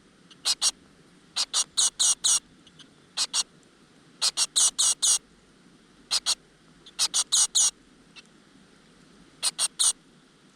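Great tit nestlings calling in a nest: short, high, squeaky notes in quick groups of two to five, a group every second or two, typical of begging for food.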